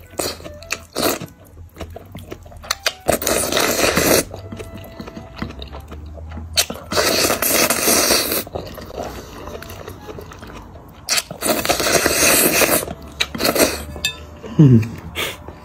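A person slurping spicy malatang noodles from a bowl: three long slurps and a shorter one, with chewing and small chopstick clicks in between. Near the end a brief low sound falls in pitch, the loudest moment.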